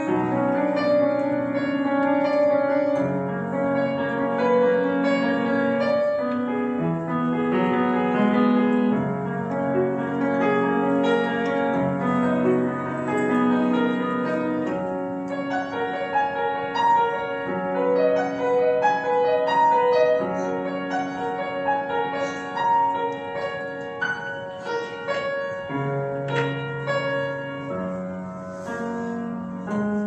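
Grand piano played solo: a flowing piece of many quick higher notes over held bass notes.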